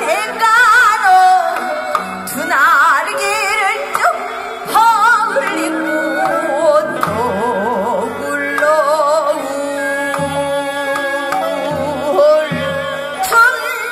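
Traditional Korean song with instrumental accompaniment: a voice holding long notes with a wide, strongly wavering vibrato over sustained instrument tones, with a single sharp percussive stroke near the end.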